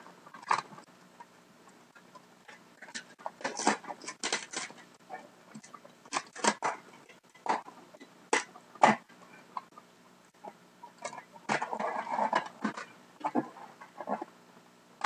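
Packing tape on a cardboard box being cut and pulled open with a blade: irregular scrapes, crackles and sharp taps with short pauses between, denser about twelve seconds in.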